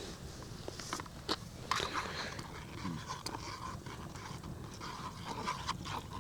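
Light clicks and scrapes of cups and utensils being handled as hot drinks are poured and mixed, with a few sharper clicks early on over a steady low background.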